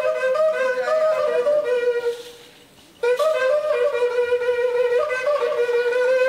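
A wind instrument blown in phrases, switching back and forth between two close notes. It breaks off for under a second near the middle and then starts again on a long held note.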